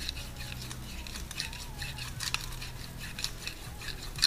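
A small wire brush scratching in quick, irregular strokes as it is twisted inside a brass refrigeration process-port fitting, cleaning the bore before it is brazed onto the tubing. A sharper click comes near the end.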